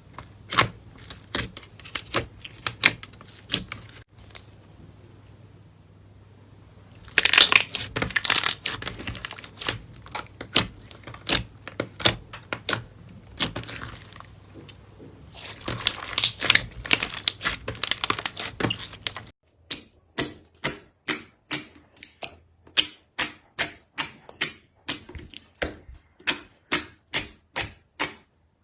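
Slime being pressed and squeezed by hand, making sharp popping and crackling clicks. It is dense and irregular at first, and after about 19 s becomes a steady series of pops, about two a second.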